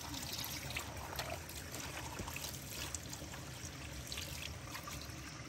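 Water trickling and running steadily, with a few faint clicks.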